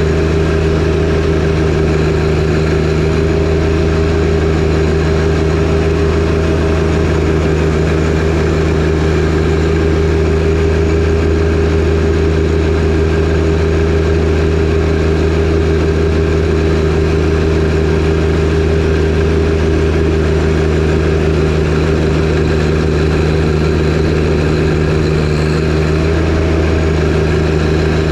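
John Deere 1025R compact tractor's three-cylinder diesel engine running steadily at constant speed under the load of its front-mounted 47-inch snowblower.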